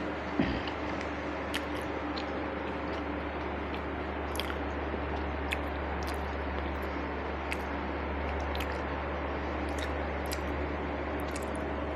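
A person chewing food with small wet mouth clicks, over a steady low background hum. A single louder knock comes about half a second in.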